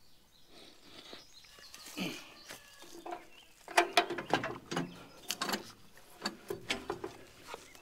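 Hand tools and metal hardware clinking as the bulldozer's battery is fitted and tightened down: a run of irregular sharp clicks and knocks, most of them in the second half.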